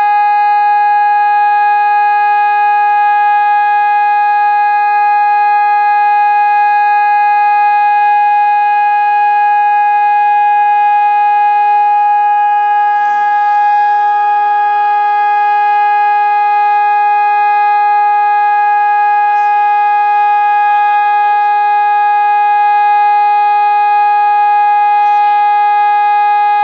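Civil defence siren sounding one steady, unbroken tone at constant pitch, with no rise and fall. This is the pattern of the German one-minute continuous-tone all-clear (Entwarnung) signal.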